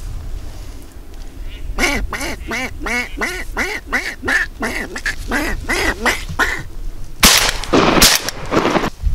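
A duck quacking in a quick run of about a dozen quacks, followed near the end by shotgun shots about a second apart, the loudest sounds here.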